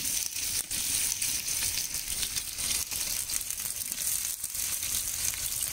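Freshly added sliced onions sizzling in hot oil in a large aluminium pot: a steady hiss with many small crackles.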